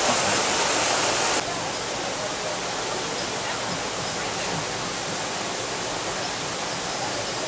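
Waterfall pouring over rocks, a steady rush of water that drops abruptly to a quieter, more distant rush about a second and a half in.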